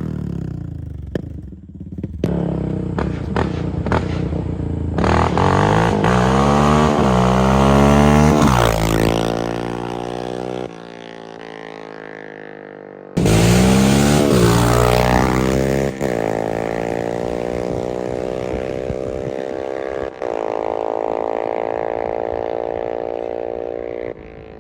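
Yamaha Raptor 700 ATV's single-cylinder four-stroke engine running through an aftermarket exhaust, accelerating hard with its pitch climbing again and again as it goes up through the gears. There are a few sharp cracks in the first couple of seconds, and the engine drops to a quieter steady note for a couple of seconds midway before pulling hard again.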